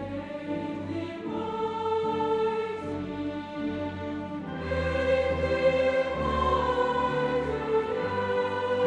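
Background music: orchestral music with choir-like singing, growing fuller about halfway through.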